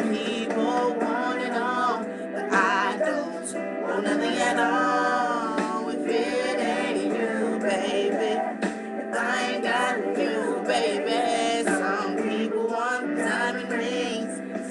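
A song playing: a solo singing voice over backing music, the voice sliding and wavering in pitch with a wide vibrato on held notes.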